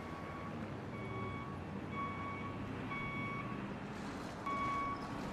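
Truck reversing alarm beeping at one steady pitch, about once a second, each beep half a second long, over a low engine rumble. The beeps and rumble get louder near the end.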